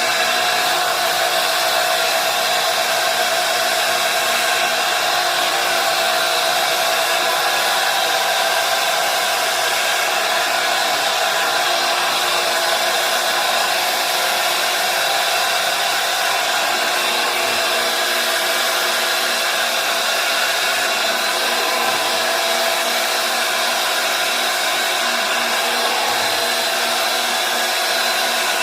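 Carpet extractor's vacuum motor running steadily, a constant whine over rushing suction air, as carpet is extracted.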